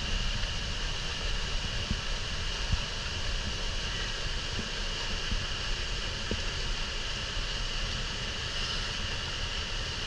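Wind buffeting an action camera's microphone, a rough low rumble over a steady hiss, with a few faint taps.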